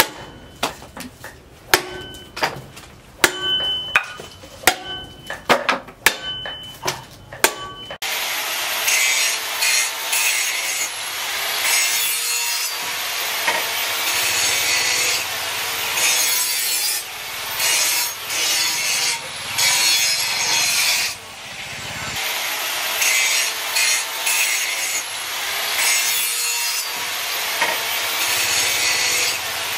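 A heavy steel knife chopping green bamboo on a wooden block: a quick series of strikes, about two a second, each with a short metallic ring from the blade. About eight seconds in, this gives way to a continuous coarse rasping, scraping noise that swells and fades slowly.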